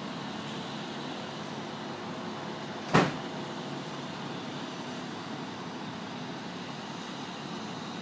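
Steady hum of city street traffic, with one sharp knock about three seconds in.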